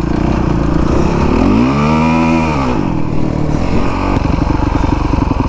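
2017 Honda CRF450R's single-cylinder four-stroke engine under way: the revs rise and fall once about two seconds in as the throttle is opened and closed, then it runs at lower revs with an even, rapid pulse.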